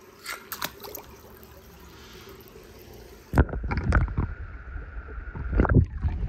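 A few light clicks as a toy car is pushed along the concrete pool edge. About three seconds in, the sound turns suddenly to a muffled underwater rush and rumble as the microphone goes under the pool water, with a steady thin hum over it.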